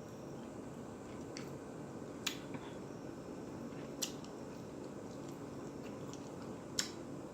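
Close-up chewing and mouth sounds of someone eating creamy shrimp Alfredo and grilled chicken, with three sharp clicks, about two, four and seven seconds in, over a steady low background noise.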